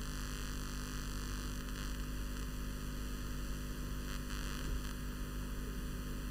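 Steady low electrical hum with an even hiss underneath: the recording's background noise, with no other sound.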